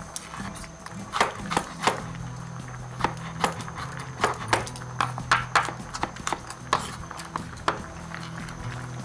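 Kitchen knife tapping on a cutting board as carrots are cut into julienne strips: irregular sharp knocks, about two or three a second, starting about a second in.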